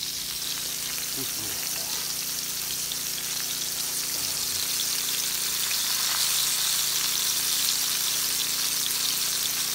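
Fish steaks frying in oil in a pan on a portable gas stove: a steady, high-pitched sizzle that grows slightly louder about halfway through.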